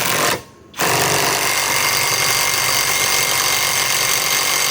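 Kobalt mid-torque cordless impact wrench hammering as it tightens a large nut: a brief trigger blip at the start, then from about a second in it hammers continuously without letting up.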